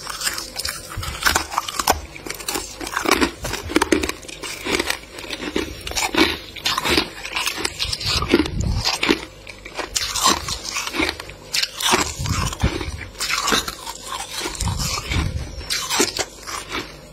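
Thick freezer frost being scraped and broken off, a dense run of irregular crunches and crackles with some duller knocks.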